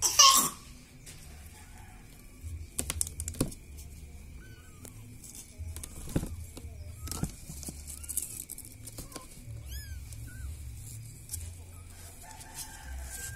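Cat meowing loudly right at the start, then scattered short, high chirping mews and a few sharp taps through the rest.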